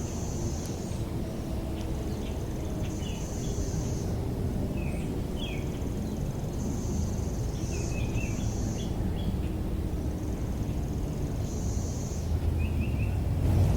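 Rural outdoor ambience. An insect buzzes high in roughly one-second bursts every few seconds, and birds give short chirps over a steady low rumble. The rumble grows louder near the end as a vehicle approaches.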